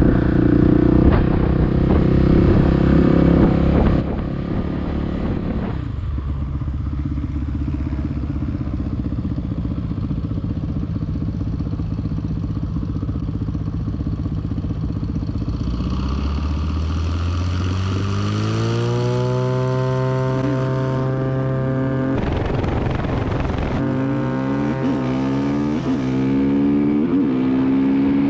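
Quad's Honda CRF450 single-cylinder four-stroke engine running loudly, then steadier, then revving up with rising pitch several times as it accelerates through the gears.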